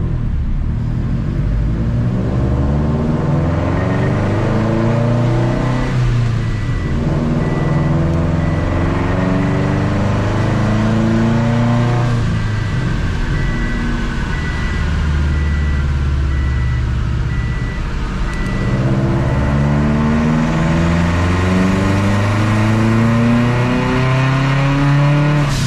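Turbocharged Subaru STI flat-four engine on a chassis dyno, heard from the driver's seat, pulling up through the gears: four long rising sweeps in pitch, each cut by a sudden drop at a gear shift about every six seconds. This is a partial pull to about 4,400 rpm on just under 10 psi of boost, with the engine running lean.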